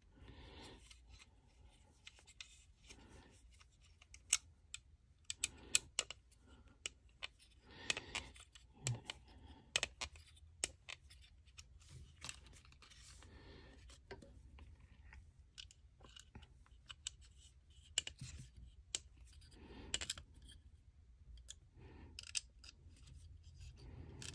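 Allen key turning the mounting screws down into a plastic rifle forend: faint, irregular clicks and scrapes of the hex key and screws, with the screws biting into the plastic.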